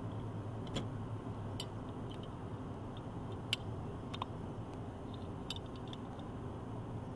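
Scattered light metallic clicks and clinks of hand tools and pulley hardware being handled, one sharper click about halfway through, over a steady low hum.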